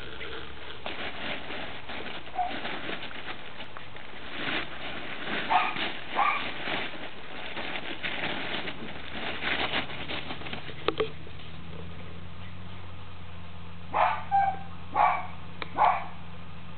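Staffordshire bull terrier puppies at rough play: crackly rustling, as of a plastic tarpaulin being pawed and rolled on, with a few small yips. Near the end come four short, high puppy yaps in quick succession.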